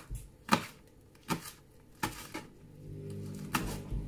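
Kitchen knife chopping green chilies on a plastic cutting board: about seven sharp, irregularly spaced knocks of the blade striking the board.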